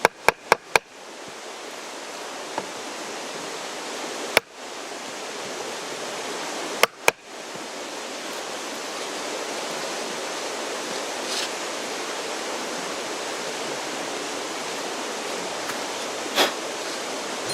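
Mountain stream rushing steadily, with sharp snaps over it: about four in quick succession at the start, then one, a close pair, and a last one near the end.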